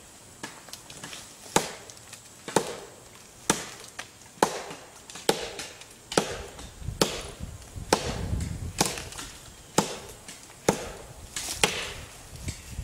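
SOG SOGfari 13-inch machete chopping into the trunk of a dead standing tree: about a dozen sharp chops, roughly one a second.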